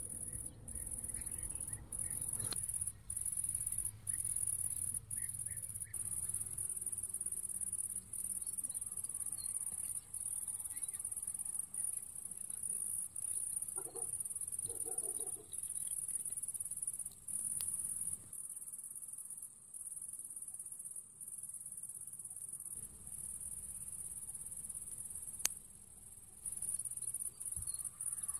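Crickets chirping in a continuous high-pitched trill, broken by brief pauses every second or two. A single sharp click comes about three-quarters of the way through.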